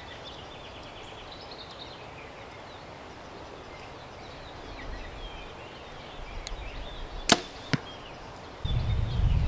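Shot from a 70-pound Mathews Phase 4 compound bow: one sharp crack of the string and limbs at release about seven seconds in, followed about half a second later by a fainter click. Near the end a loud low rumble sets in.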